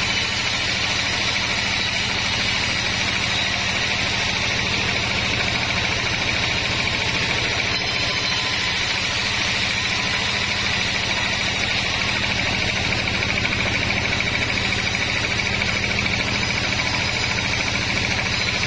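Sawmill machinery running steadily: a low engine hum under a constant high whine.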